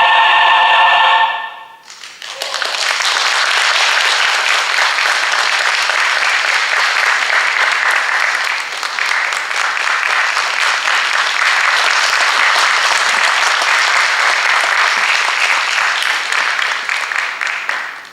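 A choir's final held chord cuts off about a second in, and an audience breaks into steady applause that tails off near the end.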